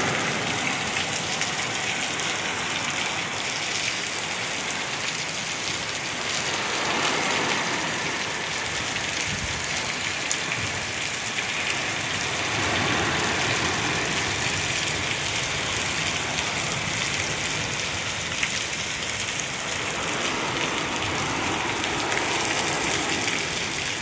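Torrential rain pouring down in gusting wind during a severe thunderstorm: a steady, loud rush of rain that swells a little now and then.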